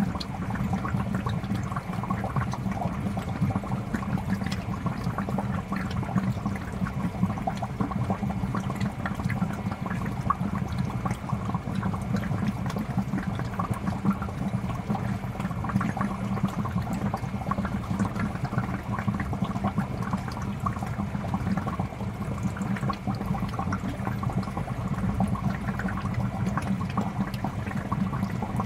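Aquarium water bubbling and trickling continuously, with a steady low hum underneath.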